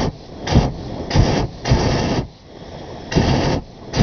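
Hot air balloon's propane burner fired in about four short blasts, each a fraction of a second long and cutting off sharply, with quieter gaps between.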